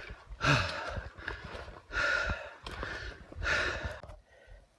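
A hiker breathing hard while walking: three loud, breathy exhalations about a second and a half apart, close to the chest-mounted microphone, with faint clicks of footsteps between them.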